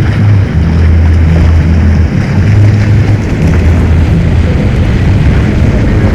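Pontoon boat's outboard motor running under way, with wind rumbling on the microphone.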